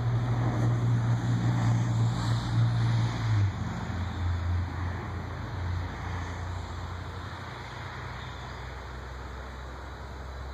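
A low motor hum over a rushing noise. It is loudest early, drops in pitch about three and a half seconds in, and then slowly fades.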